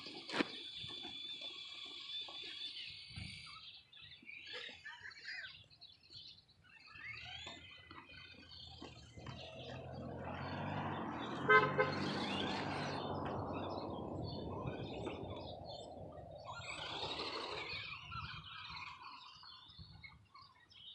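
A vehicle driving past on the street, swelling to its loudest about halfway and then fading, with a short sharp burst of clicks at its peak. A faint steady high whine is heard in the first few seconds.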